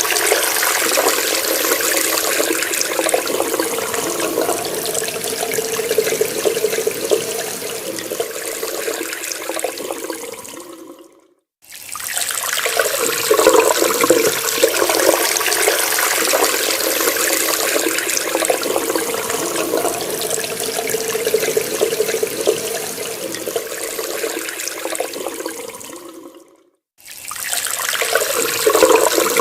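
Water running from a tap in a steady splashing stream. Twice it fades away over about a second to brief silence, then starts again abruptly.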